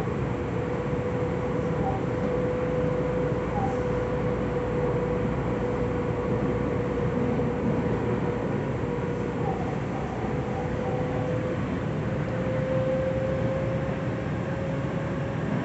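Interior running noise of a Tobu 9050 series commuter train in a subway tunnel: a steady rumble of wheels on rail at an even speed. A steady hum just under 500 Hz drifts slightly down and then back up in pitch.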